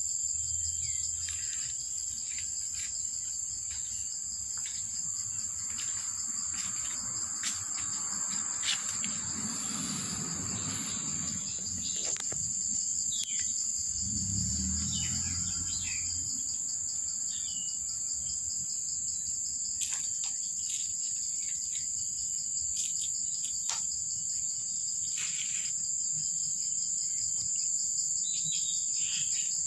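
Insects shrilling steadily at a high pitch, with no break. Short chirps and light clicks are scattered over it, and a low rumble comes twice in the middle.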